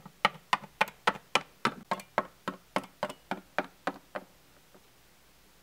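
Rapid, even footstep taps, about fifteen in a row at roughly three and a half a second, as a plastic Littlest Pet Shop figurine is walked across a hard tabletop; they stop about four seconds in.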